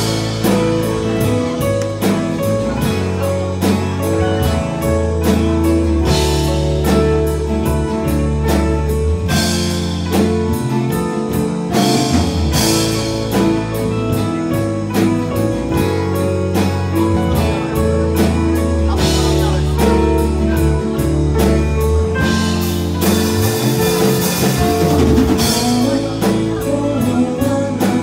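Live rock band playing a song: drum kit, electric bass, electric and acoustic guitars and keyboard, amplified through a club PA, with regular drum hits over sustained chords.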